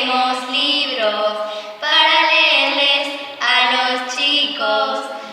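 A high voice singing a tune in phrases of held notes, each phrase about one to two seconds long.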